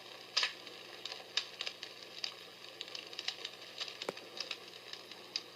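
Small battery-operated fire-crackle sound machine playing a recorded crackling fire on its low setting through its small speaker: irregular sharp pops and snaps over a faint hiss.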